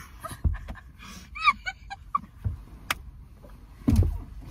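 Several young women laughing breathlessly, wheezing and gasping, with short squeaky high-pitched laughs. A few low thumps, the strongest about four seconds in.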